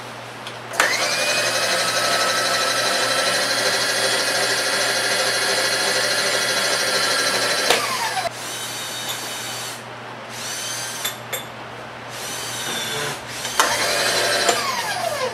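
Millrite vertical milling machine's motor switched on, rising to a steady high whine that runs for about seven seconds, then switched off and winding down in pitch. A few short whirs follow, and near the end it is started again briefly and winds down.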